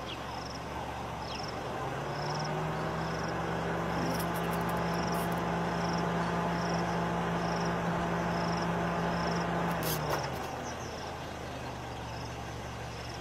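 A vehicle engine running steadily with a low hum that swells in about two seconds in and fades out about ten seconds in. A short high chirp repeats about every half second throughout.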